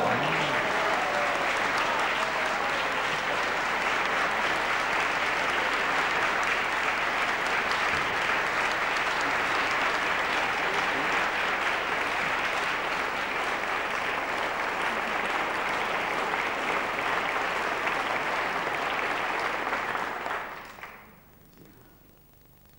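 Audience applauding steadily. The applause dies away about twenty seconds in.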